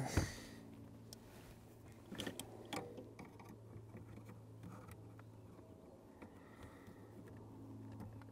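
Faint clicks and taps of needle-nose pliers against the metal clutch pedal spring assist, with one sharper knock just after the start and a few clicks two to three seconds in, over a steady low hum.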